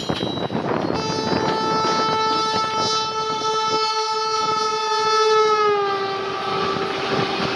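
Electric locomotive's horn sounding one long blast as the WAP-7-hauled passenger train runs in at speed, its pitch dropping as the engine passes, over the steady rumble and clatter of train wheels on the rails.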